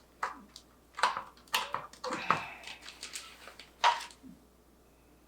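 Handling G.Skill DDR4 RAM sticks and their plastic packaging: a series of about five sharp plastic clicks and crinkles, the last of them one of the loudest, a little under four seconds in.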